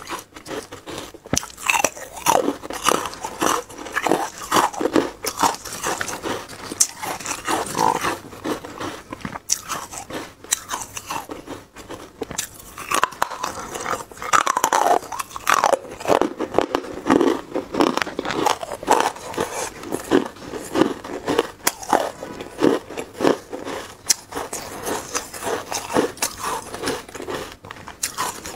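Frozen carbonated matcha ice cubes being bitten and chewed, a dense, irregular run of sharp crunches and cracks.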